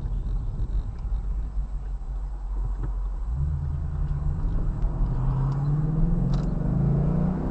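Ford Mustang's engine running at a stop, then pulling harder from about three seconds in, rising in pitch as the car accelerates away, heard from inside the cabin.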